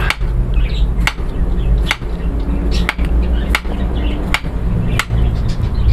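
Kitchen knife chopping through a raw potato, the blade knocking sharply on the board about once a second, seven times, over a steady low hum.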